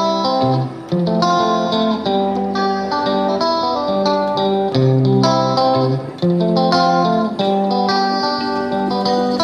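Background music: guitar playing plucked and strummed chords in a steady rhythm.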